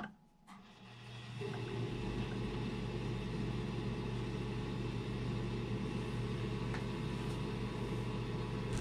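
A steady machine hum with a low tone and several higher tones, fading in over the first second or two and then holding level.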